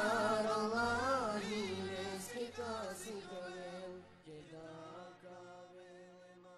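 A group of male voices singing an ilahija, a Romani-language Islamic devotional hymn, in a winding, drawn-out melody. The singing fades out over the last couple of seconds as the hymn ends.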